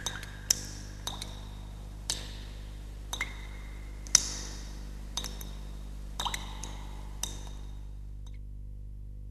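Sparse, chime-like plinks of closing music, irregular at about one a second, each ringing briefly, over a steady low hum. The plinks stop about eight seconds in, leaving only the hum.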